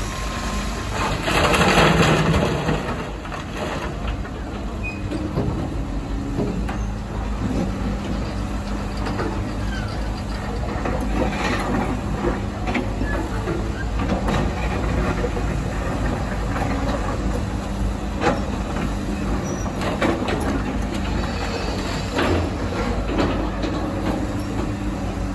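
Diesel engines of a Caterpillar and a Komatsu hydraulic excavator running steadily under load as they dig rock, with scattered knocks and scrapes of the buckets on stone. About two seconds in, a louder rush of soil and rock falling from the Komatsu's bucket down the slope.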